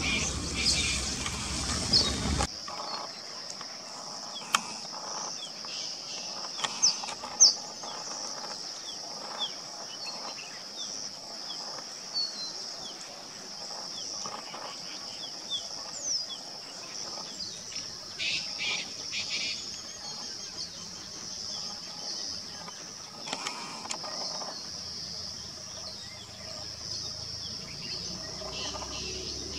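Male crested bunting giving short, sharp chirps and brief clusters of notes over a steady high insect drone. A low rumbling noise in the first couple of seconds cuts off suddenly.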